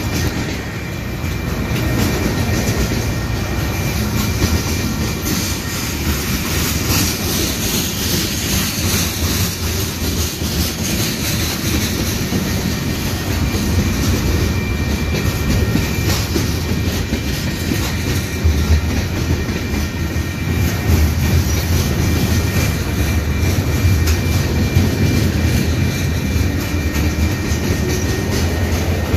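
Freight train's covered hoppers and tank cars rolling past at close range: a steady rumble of steel wheels on rail with clickety-clack over the rail joints.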